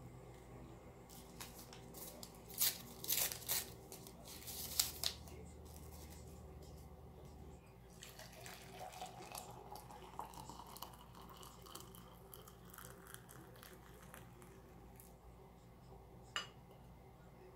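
A few sharp crinkles and taps as tea bags are handled, then hot water is poured from a stainless stovetop kettle into a glass cup, the pour's pitch rising as the cup fills. A single clink near the end.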